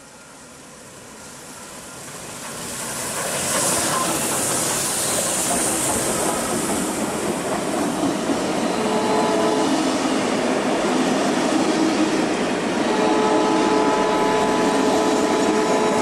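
NSWGR AD60 Beyer-Garratt steam locomotive 6029 approaching and passing close with its train. The noise swells over the first few seconds to a loud, steady rush with a burst of high hiss as the engine goes by. The carriages then roll past with wheels squealing in steady tones on the curve, about nine seconds in and again from about thirteen seconds.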